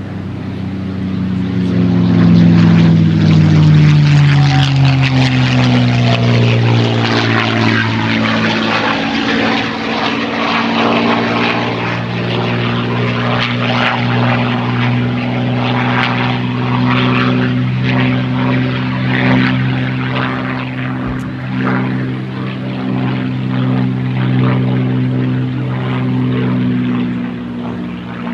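P-51 Mustang's Merlin V-12 engine and propeller, loud as the fighter flies past; the engine pitch drops steadily over the first several seconds, then holds at a steady drone.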